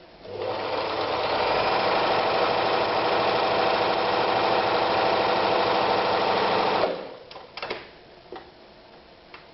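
Privileg Super Nutzstich 314 sewing machine running steadily while sewing an elastic stitch. It stops sharply about seven seconds in and is followed by a few clicks.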